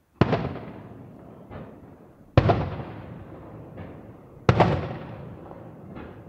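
Aerial firework shells bursting: three loud booms about two seconds apart, each dying away in a long echo, with fainter bangs in between.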